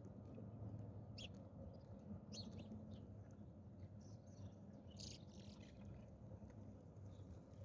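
Faint outdoor ambience: a handful of short, high bird chirps scattered over a low, steady rumble.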